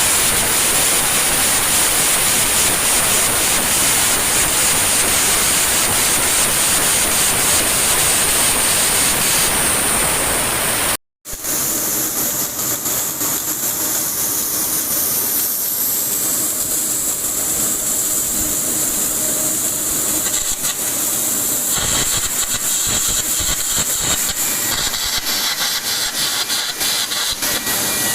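Steady hissing and machinery noise of pipeline welding work. It cuts out abruptly for a moment about 11 seconds in and comes back thinner and higher.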